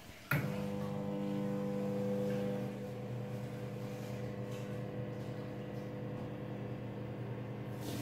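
Microwave oven switching on with a click and then running with a steady electrical hum, its magnetron heating again after the faulty high-voltage capacitor was replaced.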